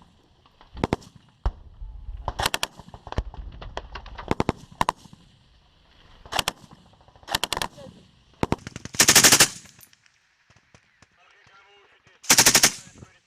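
PKM general-purpose machine guns (7.62×54mmR) firing short bursts of a few rounds each, about eight bursts in quick succession. Two louder, longer bursts come near the end.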